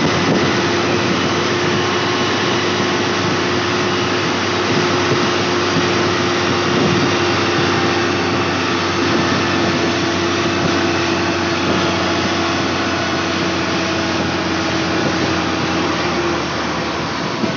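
XGMA motor grader's diesel engine running steadily under way, heard from the operator's cab, with a steady whine over the engine noise.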